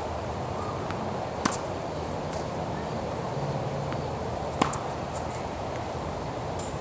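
Tennis ball struck by a racket: two sharp pops about three seconds apart, over steady outdoor background noise.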